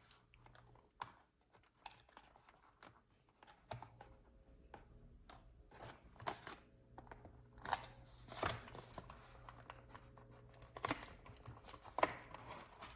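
Packaging of a Pokémon card mystery box being opened by hand: scattered clicks, snips and rustles of cardboard and plastic a second or two apart, over a faint steady hum.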